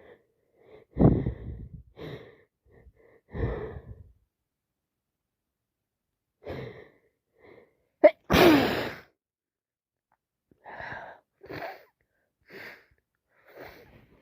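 A person with a heavy head cold sneezing several times, the loudest and sharpest sneeze about eight seconds in, with shorter breathy sniffs and breaths between the sneezes.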